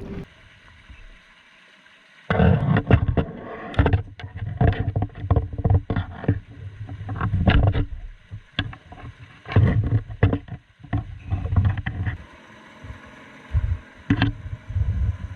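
Crab pot and gear being handled aboard a kayak: a run of irregular knocks, clatters and rattles that starts about two seconds in and thins out near the end.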